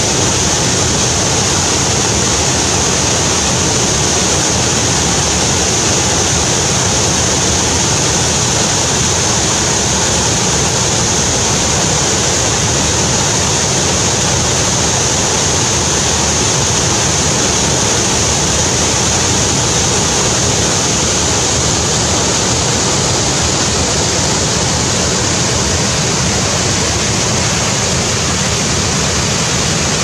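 Waterfall in flood, a wide, heavy sheet of muddy water crashing into the pool below: a loud, steady rush that never lets up.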